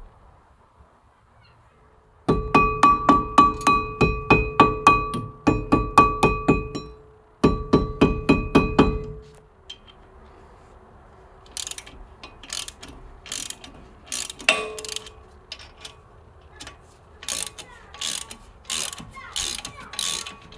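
Ratchet wrench clicking as it turns an M8 bolt threaded into a seized brake disc to force it off the hub: three loud runs of fast clicks with the disc ringing under them in the first half, then slower, single sharp clicks in the second half.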